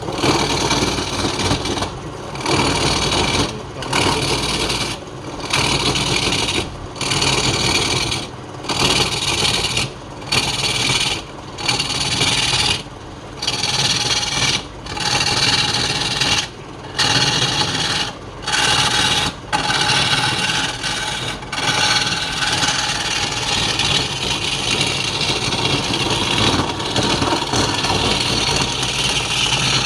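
A tool rasping against wood turning on a lathe. Short strokes break off for a moment about every one and a half seconds, then contact runs almost steadily for the last several seconds.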